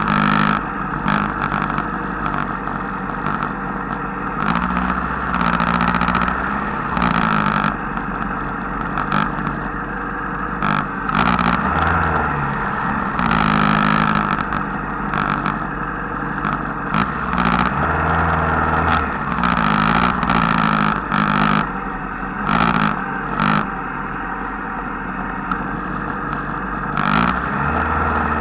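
Motorcycle and scooter engines running at low speed in a slow-moving group, heard close from a bike-mounted camera. The revs rise and fall, and short rushes of noise come and go.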